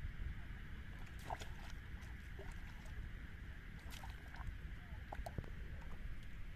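A hooked fish thrashing at the water surface on the line: a series of short, sharp splashes that start about a second in.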